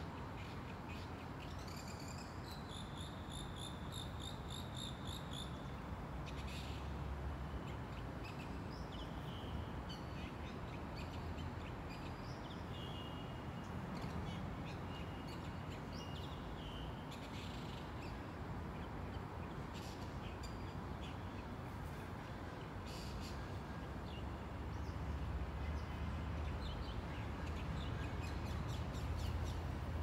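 Outdoor ambience of birds calling and chirping, with a quick run of repeated high notes a couple of seconds in and scattered calls after, over a steady low rumble.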